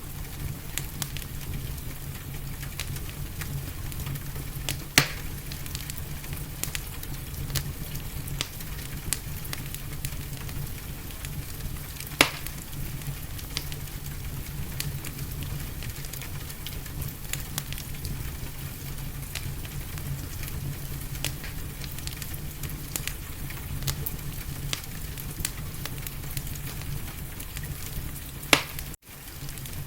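Wood fire crackling in a fireplace: a steady run of small crackles with a few sharper pops, over a steady low rumble. The sound drops out for an instant near the end.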